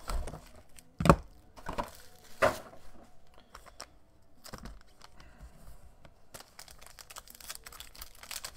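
Foil wrapper of a trading card pack crinkling and tearing as it is opened, a dense crackle from about six seconds in. Before that, a few sharp knocks, the loudest about a second in.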